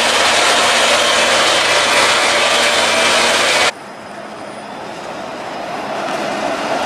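Loud steady rushing noise with a low hum as a Flexity Outlook streetcar comes toward the camera, cutting off abruptly about three and a half seconds in. Quieter street noise then grows steadily louder as another Flexity Outlook streetcar approaches along the street.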